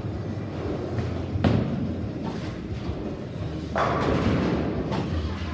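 Bowling alley sounds: a bowling ball thuds heavily onto the lane about a second and a half in, and a couple of seconds later pins crash and clatter, with a smaller knock just after, over a steady low hum.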